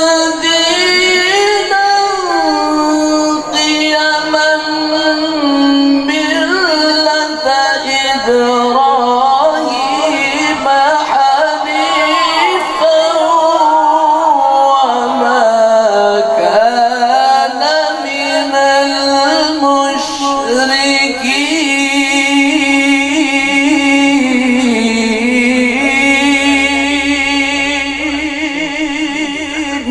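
A male qari reciting the Quran in a melodious, ornamented tilawah style. He draws out one long sung phrase with quick trills on held notes, sliding lower in pitch around the middle and then back up.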